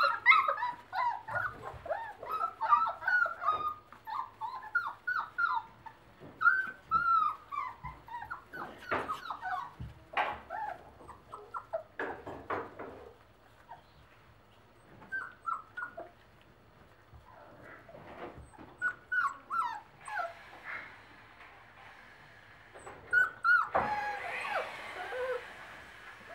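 Young Basset Artésien Normand puppies whimpering and yipping in short, high squeaks. Many overlap in the first half, and flurries come again near the end, with a few knocks among them.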